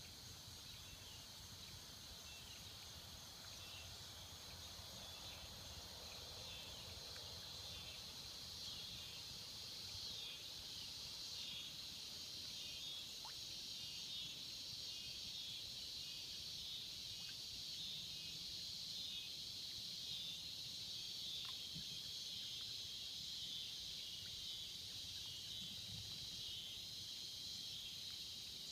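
Cicadas in a steady chorus, a high pulsing buzz that grows slightly louder over the stretch.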